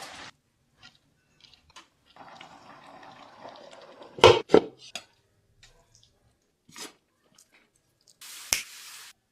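Kitchen cooking sounds in short cut-together stretches: a hiss that starts and stops abruptly, scattered light clicks of utensils, and two loud knocks of a pan or utensil a little over four seconds in.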